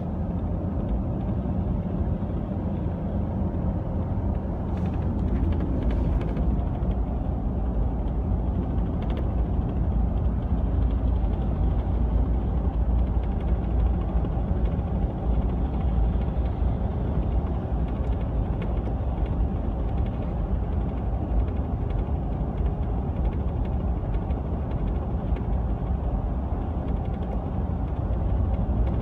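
Rattling and creaking from a LEER Bulldog fibreglass truck canopy on a 2015 Ford F-150, going on continuously over a steady low road-and-engine rumble while the truck drives. The rattle is a fault the owner traces to the canopy, since the noise is not there with the canopy off.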